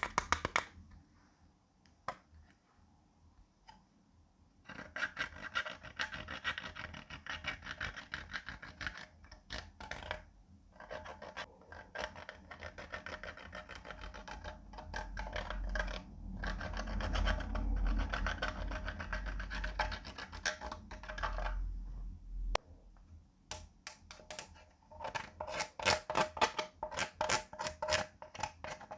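Clear slime being kneaded and pressed by hand with makeup and eyeshadow worked in: a dense run of wet crackling and popping clicks. It starts about five seconds in, with a low rumble under it in the middle, and turns into sharper, separate pops near the end.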